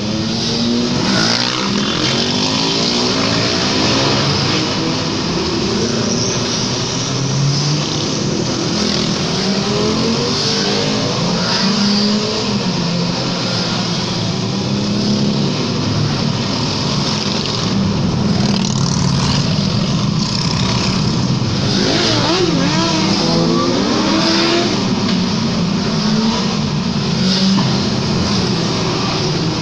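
A long convoy of motorcycles riding past one after another, many engines running at once with their pitch rising and falling as each bike passes and revs, heard from inside a road tunnel.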